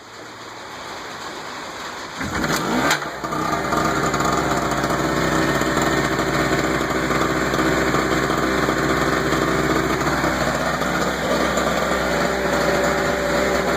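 Harbor Freight Storm Cat generator's 63 cc two-stroke engine pull-started, catching about three seconds in, then running steadily at constant speed.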